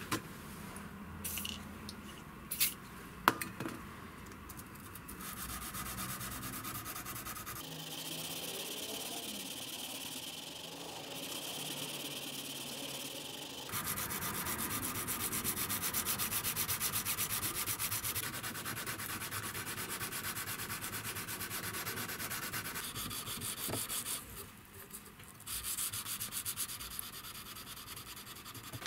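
Hand-sanding a hardened steel knife blade clamped in a vise: a flat abrasive rubbed back and forth along the blade, cleaning off the heat-treat scale and temper colours. A few sharp clicks and knocks in the first few seconds, and the sanding strokes get louder about halfway through.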